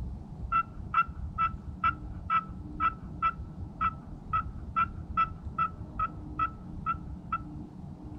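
Turkey call sounding a long, even series of about sixteen short hen-turkey yelps, roughly two a second, used to try to draw a gobble from a tom.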